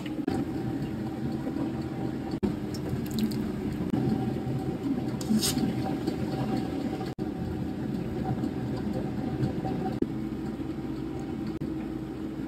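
Wet, liquid kitchen sounds of parboiled rice being drained in a mesh strainer and ladled into a steel pot, over a steady low hum. The sound changes abruptly twice, where the shots are cut together.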